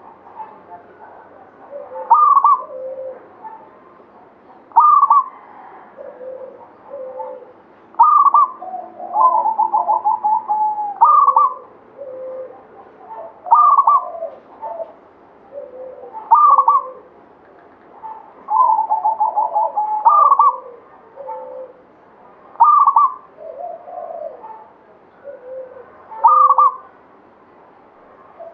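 Zebra dove (perkutut) singing: its cooing phrase, a short rising coo followed by lower notes, repeated about every two and a half to three seconds. Twice it is drawn out into a longer rapid rolling run of coos.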